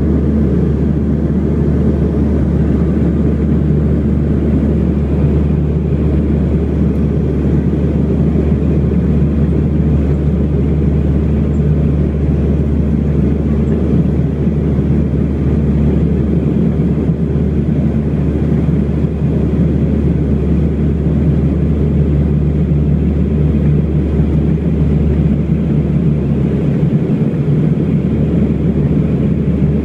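Steady, loud cabin drone of an Embraer EMB 120 Brasilia's twin turboprop engines and propellers in flight, heard from inside the cabin by the wing: a low hum with a rushing noise over it.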